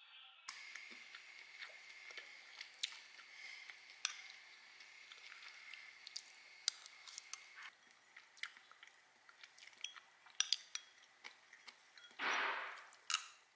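Quiet eating sounds: a metal spoon clicking and scraping in a ceramic bowl of sticky rice, with chewing. A faint steady high whine runs under the first half, and a short hiss of noise comes near the end.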